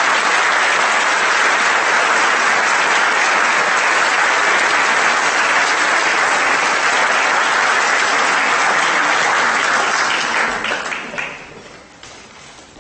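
An audience applauding steadily, which fades out about eleven seconds in, leaving a few scattered claps.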